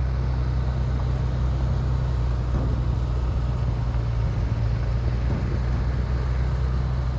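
An engine running steadily with a constant low drone, which cuts off abruptly near the end.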